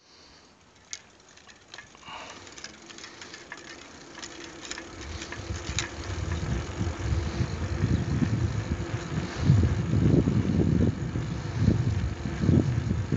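Wind buffeting the microphone and the rumble of wheels on asphalt while moving downhill, growing louder as speed builds. A few sharp clicks come in the first few seconds.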